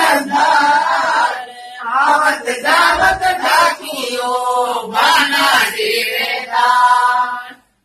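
Chant-like singing voice in long held notes with short breaks between phrases, cutting off suddenly near the end.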